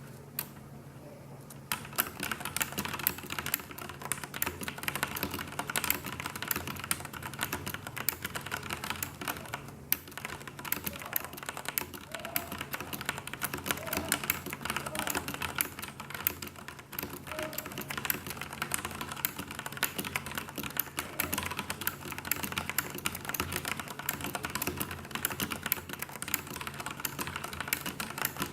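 Continuous fast typing on a Filco tenkeyless mechanical keyboard with Cherry MX Black linear switches and thin stock ABS keycaps: a dense run of key clacks that starts about two seconds in, over a faint steady low hum.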